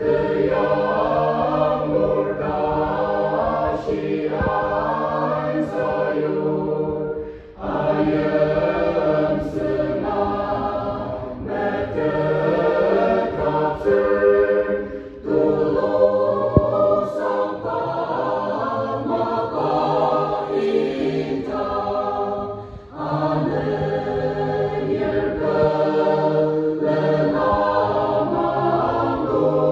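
Mixed choir of women's and men's voices singing a hymn in parts, with brief breaks between phrases about every seven to eight seconds.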